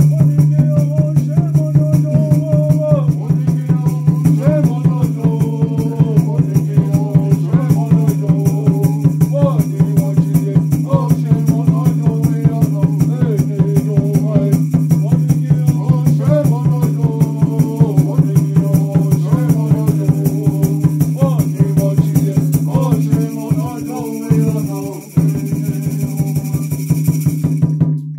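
Music with a steady, even rattling beat over a constant low drone, with a wavering melody line on top. The low drone cuts out in short gaps near the end.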